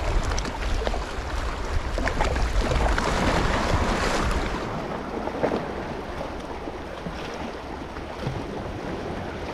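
Small waves washing and splashing against shoreline rocks, with wind buffeting the microphone that eases about halfway through.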